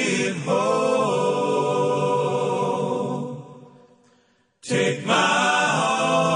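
Song soundtrack of layered voices singing long held notes, choir-like and chant-like, with no clear words. About three and a half seconds in it fades to a brief silence, then comes back abruptly about a second later.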